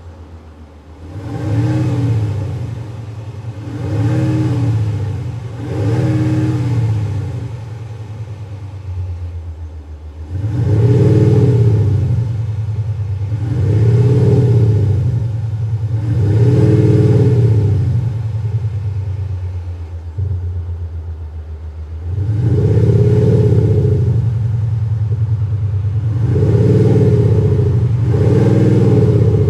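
Dodge Durango idling and blipped three times in each of the Eco, Sport and Race settings of a Panthera LEO MAGNA Sound Booster, an active exhaust speaker that adds a synthesized exhaust note. Each rev rises and falls back to a steady idle drone. Each setting is louder than the last: the change to Sport comes about ten seconds in, and the change to Race about twenty-two seconds in.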